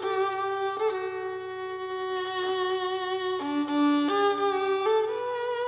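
Solo violin, bowed, playing a slow melody in long held notes. A little past halfway it drops to a lower note, then climbs back up.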